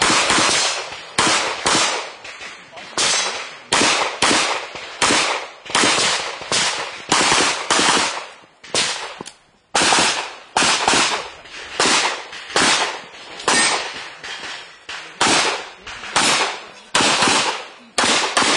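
A pistol is fired rapidly over and over: about thirty sharp cracks, mostly in quick pairs with short gaps between groups. Each crack trails off briefly, and there is a short lull about nine seconds in.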